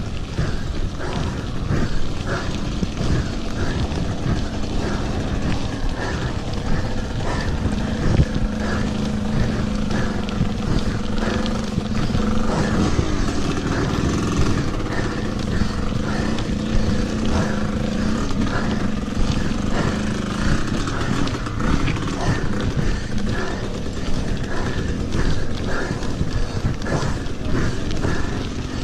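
Mountain bike riding over a rough gravel track: tyres crunching over stones and the bike rattling, with many small knocks throughout, and wind on the microphone. A steady low hum runs underneath from about two seconds in until about twenty seconds in.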